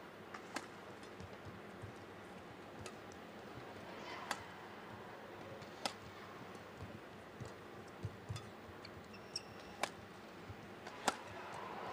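Badminton rally: sharp racket strikes on the shuttlecock, one every second or two at an uneven pace, over a low arena hum that swells slightly near the end.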